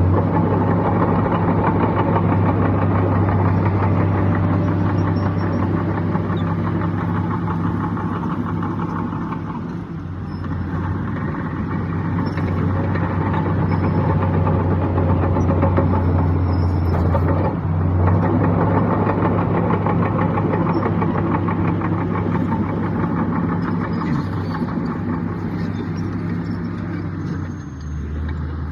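Heavy diesel engine of an earthmoving machine running hard, with a steady low drone. Its load eases briefly about a third of the way in and again near the end.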